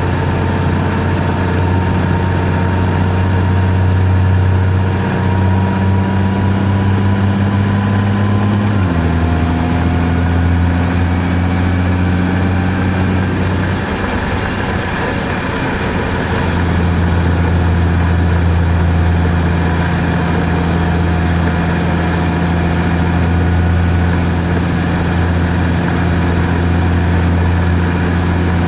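Car engine running steadily with road noise while driving. The engine note steps down suddenly about nine seconds in and changes again a few seconds later.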